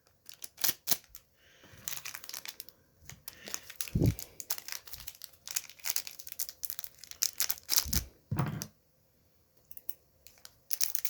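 Foil Pokémon card booster pack wrappers crinkling and tearing as they are handled and opened, a dense run of sharp crackles. Two duller thuds come about four and eight seconds in, and the crackling pauses briefly near the end.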